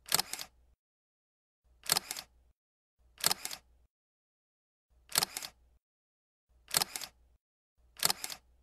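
Camera shutter sound effect clicking six times, about every one and a half seconds, each a quick double click, with silence between.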